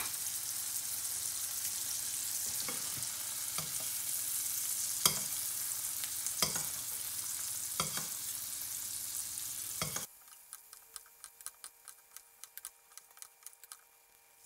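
Quail breasts frying in butter and herbs in a stainless steel pan, a steady sizzle, with a metal spoon clicking against the pan about every second and a half as hot butter is spooned over the meat. About ten seconds in, the sizzle cuts off abruptly, leaving faint crackles and a low hum.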